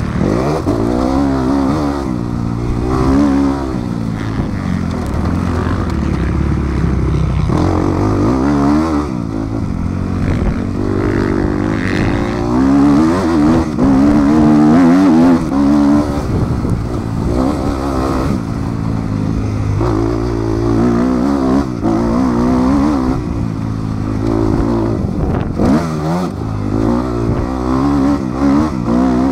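Motocross bike's engine heard from on board, close to the rider, rising and falling in pitch again and again as the throttle is opened and shut over the track.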